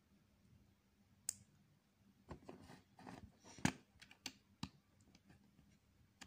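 Plastic Lego bricks clicking and rattling as they are handled and pressed together: a single sharp click about a second in, then a run of clicks and knocks, the loudest a little past the middle.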